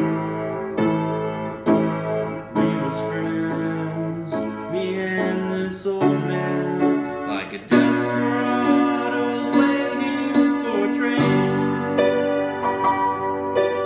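Piano played with both hands: an instrumental passage of struck chords and melody notes left to ring.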